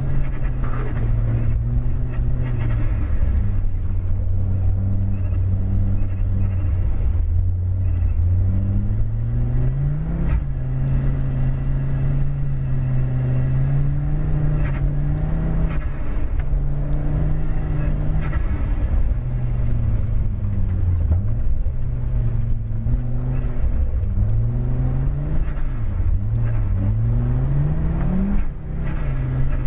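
Audi car engine heard from inside the cabin under hard driving, its revs climbing and dropping several times with throttle and gear changes.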